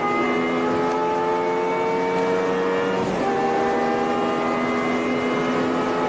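BMW E60 M5's V10 engine pulling hard under full-throttle acceleration, heard from inside the cabin. The engine note climbs steadily, drops sharply with an upshift about three seconds in, then climbs again.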